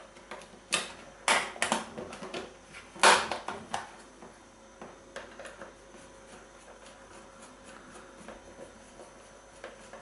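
Sharp plastic clicks and knocks as the hard-drive bay of a Lenovo ThinkPad T420 laptop is pushed shut by hand, several in the first four seconds with the loudest about three seconds in. These are followed by faint ticking as a small screwdriver turns the bay-cover screw.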